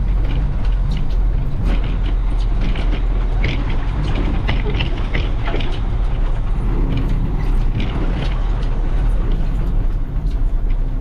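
18-wheeler semi truck's diesel engine running as the truck rolls along: a steady low rumble with scattered short rattles over it.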